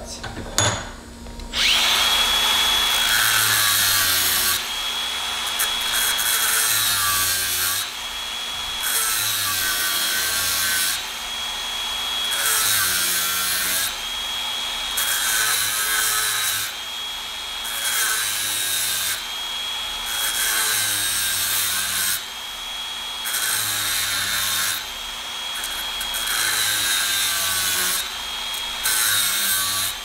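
Angle grinder with a thin cutoff wheel spinning up about a second and a half in, then cutting into the crimped steel ferrule of a hydraulic hose fitting in repeated passes, dipping briefly about every two seconds as the wheel is eased off and pressed back in. The cut is being made to free the fitting from the old hose so it can be reused.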